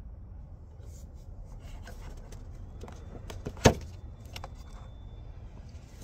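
Rubber hose being worked off the plastic air filter housing: scattered clicks and scrapes of rubber and plastic, with one sharp snap about three and a half seconds in.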